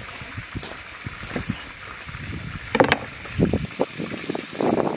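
Knife cutting raw potatoes into strips on a wooden cutting board: irregular taps and knocks of the blade on the board, with handling of the cut pieces, over a steady hiss of outdoor air.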